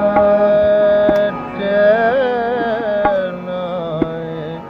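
Song with harmonium and tabla: a long held note, then a sung phrase that wavers with ornaments, over a few sharp tabla strokes.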